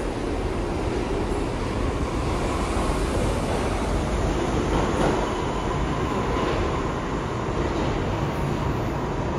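An R62-series New York City subway train running through the station: a steady noise of wheels on rail, with a faint high steady tone coming in about two seconds in.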